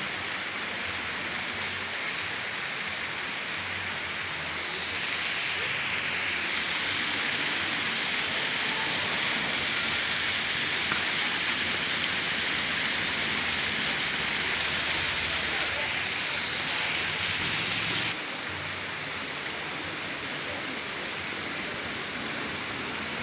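Waterfall rushing as a steady wash of water noise. It grows louder and brighter about five seconds in, holds for roughly twelve seconds, then drops back.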